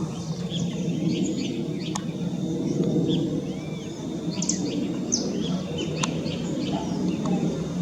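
Steady low rumble of a Cessna 560 Citation V business jet's turbofan engines passing at a distance, with many birds chirping over it. There are two sharp clicks, about two and six seconds in.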